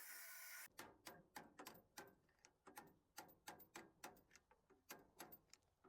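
Faint, sharp metallic ticks, about four a second and fading toward the end, typical of a ratchet wrench backing out a bolt. A steady hiss cuts off in the first second.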